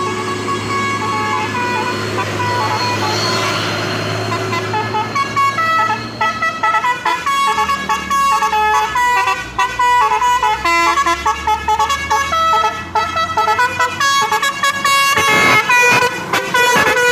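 Telolet basuri multi-tone vehicle horn playing a melody. It holds steady chords for about the first five seconds, then plays a fast run of short notes that step up and down in pitch and stutter near the end.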